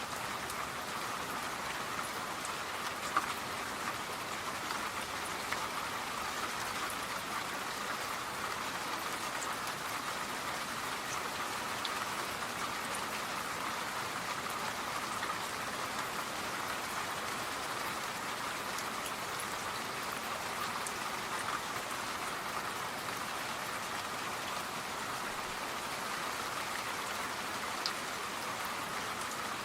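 Steady rain falling, an even hiss of rain on a surface with a few sharper single drops ticking now and then.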